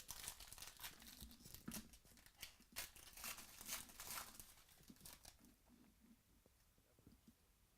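Faint tearing and crinkling of a foil trading-card pack wrapper being ripped open and handled, in irregular bursts that die away over the last couple of seconds.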